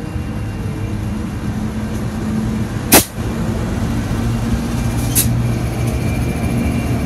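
Pacific National NR-class diesel-electric locomotive (GE Cv40-9i) NR22 pulling a freight train slowly past, its engine giving a steady low drone that grows a little louder. A single sharp knock about three seconds in.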